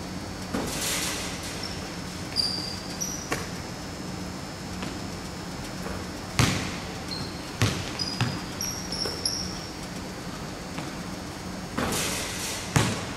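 Basketballs thudding and slapping on a hardwood gym floor and into catching hands, with short sneaker squeaks on the court, echoing in a large hall. The loudest thuds come about six seconds in and just before the end.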